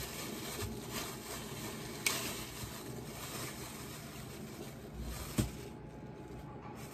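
A drip coffee maker hissing steadily near the end of its brewing cycle, with plastic bag and banana-leaf wrapping rustling as hands unwrap a rice cake. A few sharper knocks come through, the loudest about two seconds in and again just after five seconds.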